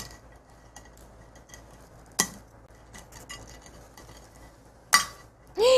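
Small scraping and tapping on a brittle dalgona sugar candy as it is picked at on a ceramic plate, with a sharper click about two seconds in and another near five seconds. A brief voice starts at the very end.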